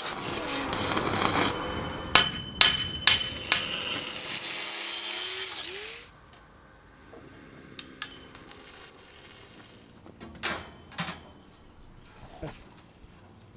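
Building work on a wooden aviary frame: a run of sharp knocks like hammer blows among clatter, then a quieter stretch with a few scattered knocks.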